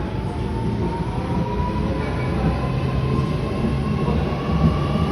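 Sydney Trains electric passenger train pulling out of the station, with a whine that rises steadily in pitch as it gathers speed over a low rumble of the train running.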